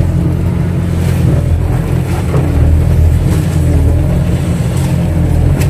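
Kato crawler excavator's diesel engine running steadily under working load, a low, even drone, with a short knock near the end.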